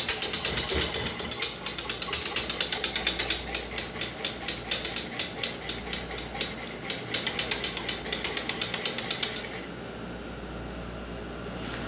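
Wire whisk beating milk in an aluminium saucepan to froth it: rapid rhythmic clicking and scraping of the wires against the metal pan, about five strokes a second. It stops about nine and a half seconds in, leaving a steady hiss.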